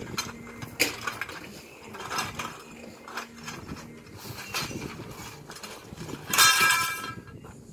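Canvas awning bag being handled, with metal awning poles knocking and clinking inside it; near the end the poles slide out and clatter together with a ringing metallic rattle, the loudest sound.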